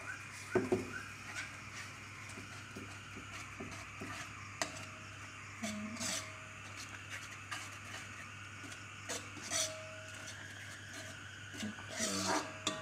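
Metal ladle stirring thick sauce in an aluminium wok, with scattered clicks and scrapes of metal on metal over a steady faint hiss.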